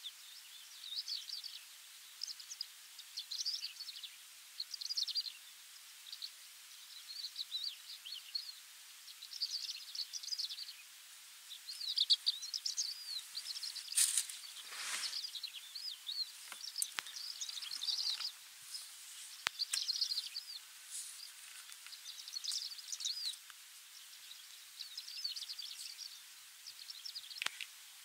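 Greater short-toed lark singing: short phrases of quick, high chirps repeated every second or two with brief pauses between, and a crested lark joining in. A few sharp clicks sound around the middle and near the end.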